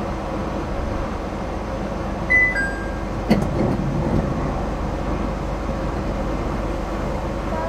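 Steady hum inside a Nippori-Toneri Liner automated guideway car standing still. About two seconds in there is a short two-note electronic beep stepping down in pitch, and a second later a single sharp knock.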